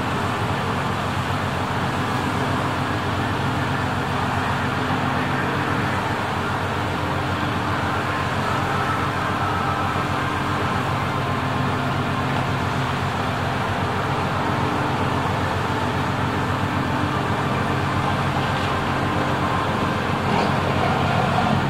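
Steady drone of a boat's engine running under way, a low even hum over a constant rush of wind and water.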